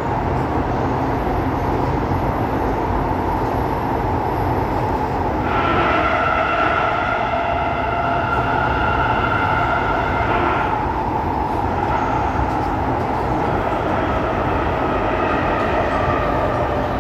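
Inside a Kawasaki-Nippon Sharyo C751B metro train running through a tunnel: a steady rumble and rail noise. A whining tone joins in from about five to eleven seconds in, and a fainter tone near the end falls slightly in pitch.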